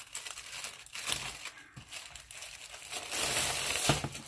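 Thin plastic wrap crinkling and rustling as it is pulled off a planner. It gets louder about three seconds in and ends with a short thump.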